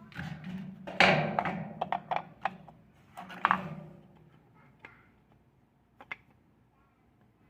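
Washing-machine clutch and pulley gear parts handled and fitted together by hand: a series of sharp clicks and knocks, busiest in the first four seconds, then two light taps about six seconds in.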